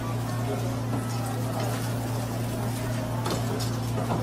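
Skewered eel fillets grilling over charcoal, a faint sizzle and a few light crackles over a steady low hum.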